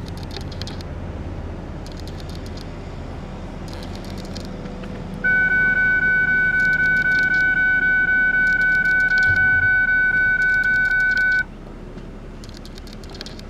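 A loud, steady high-pitched tone comes in about five seconds in, holds at one pitch for about six seconds, then cuts off suddenly. A continuous low rumble runs underneath.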